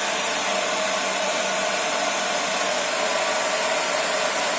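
Philips BHD282/00 hair dryer running steadily: a constant rush of blown air with a steady fan whine.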